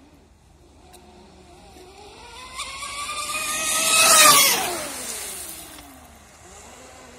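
TFL Zonda radio-controlled speedboat running on its stock electric motors in a high-speed pass. A whine rises in pitch and grows louder as the boat approaches, loudest about four seconds in along with the hiss of its spray. It then drops in pitch and fades as the boat runs away.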